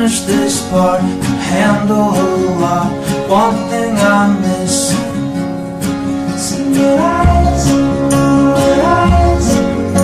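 A song with acoustic guitar and a sung melody. Deep bass notes join about seven seconds in.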